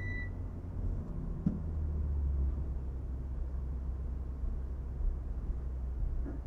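BMW M2's turbocharged straight-six engine running at low revs, a steady low rumble heard from inside the cabin as the car rolls slowly, its speed falling to a crawl.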